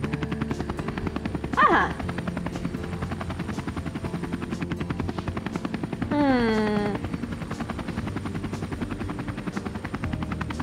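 Helicopter rotor sound effect: a steady, rapid chopping. A short gliding pitched sound comes in about a second and a half in, and a falling pitched call lasting about a second comes in about six seconds in.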